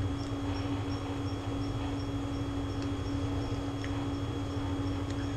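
Room tone: a steady low hum under faint high ticks repeating about twice a second.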